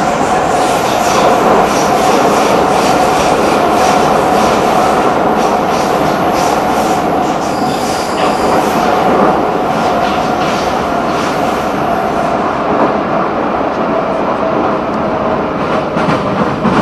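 Prague metro train running at speed through a tunnel, heard from inside the car: a loud, steady rush of wheels on rail with a constant whine underneath. A thin high squeal from the wheels comes in about halfway through.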